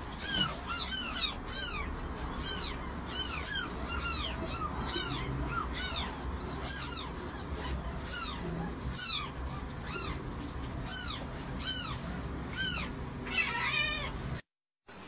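Newborn kittens mewing: short, high-pitched squeaks, about one and a half a second, with a wavering cry near the end before the sound cuts off suddenly.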